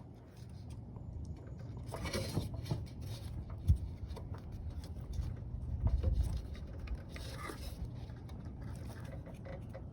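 Low rumbling handling noise on the phone's microphone, with faint scrapes and one sharp click about four seconds in, as a piece of a truck bed light is worked loose by hand.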